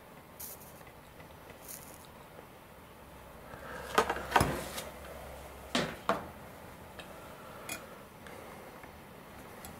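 Light clicks and knocks from handling a soldering iron and fine wires held in a helping-hands clip: a cluster about four seconds in and two more about two seconds later, over quiet room tone.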